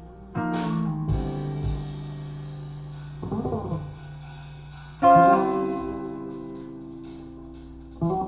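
Jazz piece with sustained plucked-string chords, a new chord struck about half a second in and another about five seconds in, each left ringing and fading, with a brief quick figure in between.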